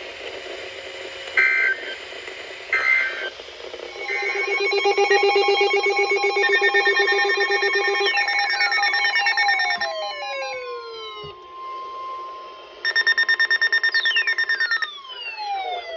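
Emergency alert signalling between broadcast weather warnings: two short electronic bursts, then loud electronic alarm tones. A stack of steady tones pulses rapidly, and falling whistles sweep down one after another. A second pulsing burst of tones comes about three-quarters of the way through.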